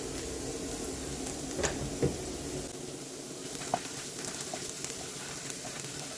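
Stir-fry sizzling steadily in a hot pan as it is stirred, with a few sharp clicks of the utensil against the pan, three of them plain.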